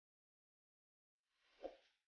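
Near silence, broken near the end by one short, soft sound lasting under a second.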